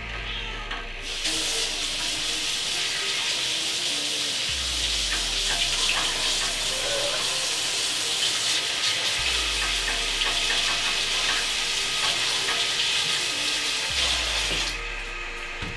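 Kitchen sink tap running with water splashing, as hands are washed after mixing raw ground meat. The water comes on about a second in, runs steadily, and shuts off near the end.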